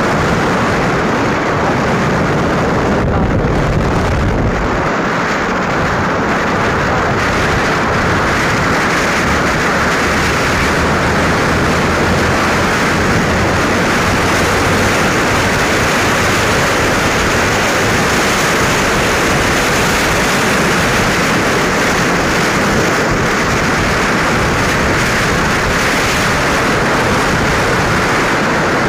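Steady rush of wind on the microphone of a phone carried in a moving vehicle on a road, with a faint low hum through the middle part.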